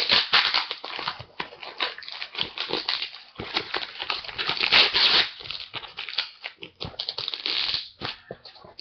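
A package being opened by hand: cardboard and packing material rustling, scraping and tearing in irregular strokes.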